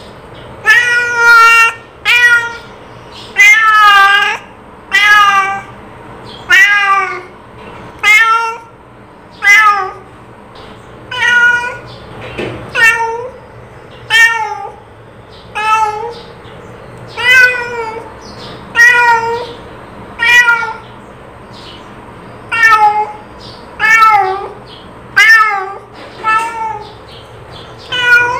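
A cat meowing over and over, about one meow a second, each call rising and then falling in pitch.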